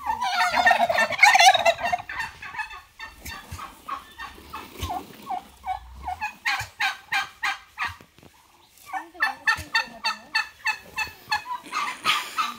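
Farm turkeys gobbling: a loud, dense gobble at the start, then long runs of quick rattling notes with a short lull in the middle, and another loud gobble near the end.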